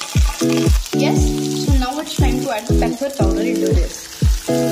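Background music with a steady kick-drum beat about twice a second and sustained chord tones, over the sizzle of chopped onions frying in oil in a pan.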